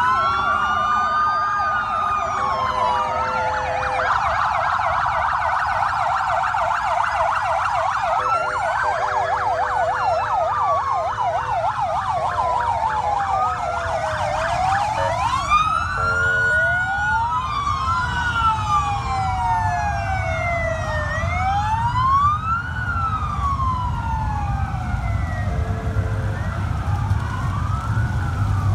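Several American-style police car sirens sounding at once, overlapping slow rising-and-falling wails with a fast yelp for a few seconds. Near the end the low rumble of passing Harley-Davidson motorcycle engines builds under the sirens.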